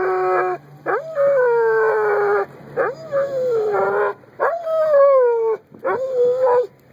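A dog making long, drawn-out whining howls, about five in a row, each jumping up at the start and then sliding slowly down in pitch. The dog is eager to go for a ride.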